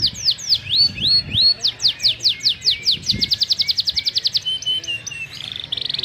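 Domestic canary singing: a series of repeated whistled notes, each sweeping downward, a few per second, that speed up into a fast trill about halfway through, followed by a lower phrase and a rapid buzzy roll near the end.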